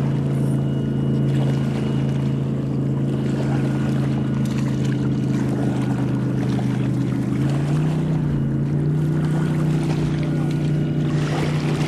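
A boat engine drones steadily out on the lake, its pitch stepping up about two-thirds of the way through and again near the end.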